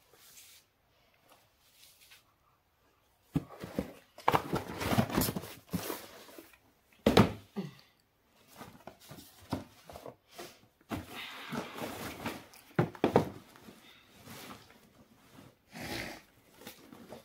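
Plastic carrier bags and packaging rustling and crinkling in bursts as a shoebox and its contents are handled, starting about three seconds in. A sharp knock about seven seconds in is the loudest sound.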